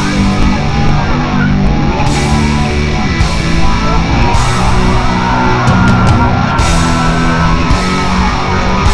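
Loud heavy rock music with electric guitars.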